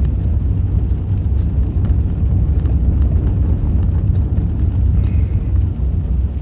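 Loud, steady low rumble with a faint hiss above it, easing off right at the end.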